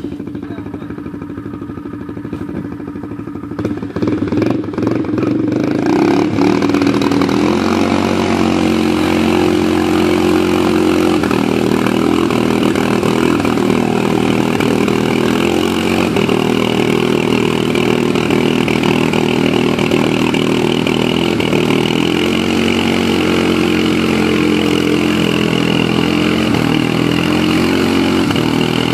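ATV engine running, getting louder about four seconds in and then held at high revs with its pitch rising and falling: a four-wheeler being throttled to get out of a mud hole where it is stuck.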